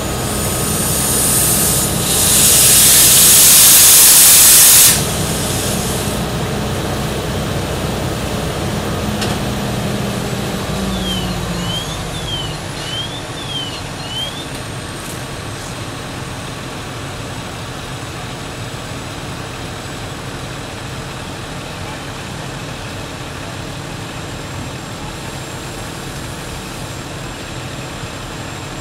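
Heavy diesel engine of a fire truck running with a steady low drone, with a loud burst of hissing air for about three seconds near the start. About twelve seconds in the engine drone drops away, leaving a lower steady rumble.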